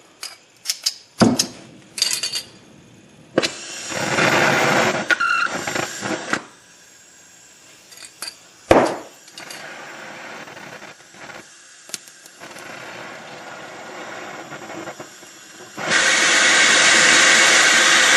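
Tools and metal parts clacking and knocking, with a hiss lasting about three seconds. Then, about sixteen seconds in, a handheld torch flame starts with a loud, steady hiss, heating a seized sway bar link nut to break it loose.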